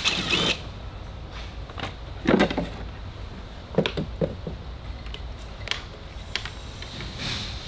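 Old heater blower motor and its rusty squirrel-cage fan being handled on a metal mounting plate: scattered clanks, clicks and scrapes of metal parts, the loudest about two seconds in.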